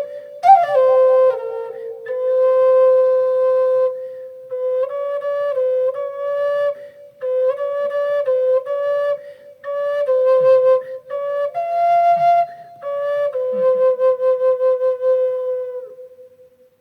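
Solo wind instrument playing a slow melody in short phrases, with a quick trill near the start, ending on a long held note that fades out.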